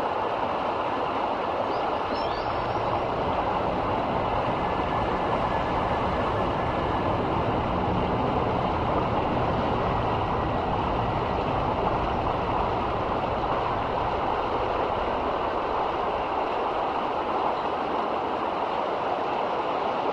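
River water rushing and flowing in a steady, even stream.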